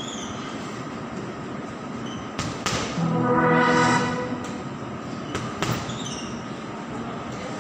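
Boxing gloves hitting a heavy punching bag in jab–straight combinations: two pairs of sharp thuds, each pair a fraction of a second apart. In between, a steady pitched tone is held for about a second and a half and is the loudest sound, over a constant background hum.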